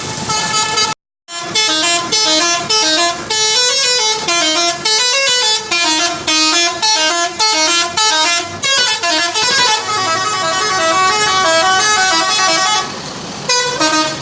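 Bus 'telolet' horn, a multi-tone musical horn, playing a fast tune of short stepped notes over and over, loud. It cuts out briefly about a second in.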